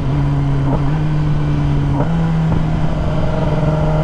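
Kawasaki ZX-10R's inline-four engine running at steady cruising revs under wind rush on the microphone, its pitch dipping briefly about a second in and stepping up slightly about two seconds in.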